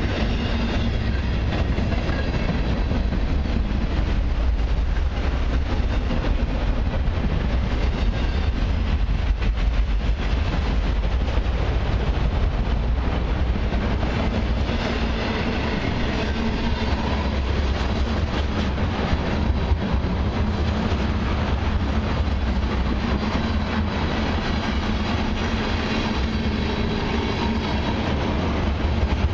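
Long mixed freight train of autoracks, a boxcar and tank cars rolling past: a steady rumble of steel wheels on rail, dotted with many small clicks.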